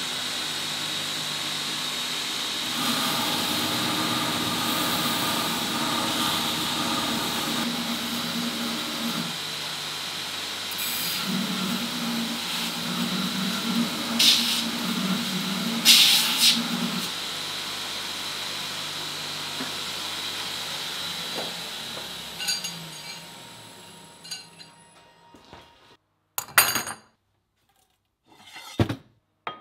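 Belt grinder running with a steady whine while steel is ground against the abrasive belt, throwing sparks. The grinding has a couple of sharper scrapes in the middle. The grinder then winds down and stops, and near the end two short metallic clanks come from steel tubes being handled.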